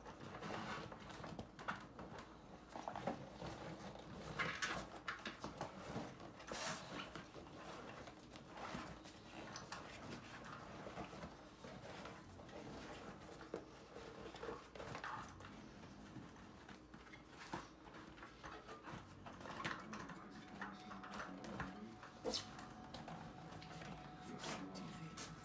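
Fat-bike tyre and inner tube being worked onto the rim by hand: faint, scattered rubbing, squeaks and taps of rubber against the rim.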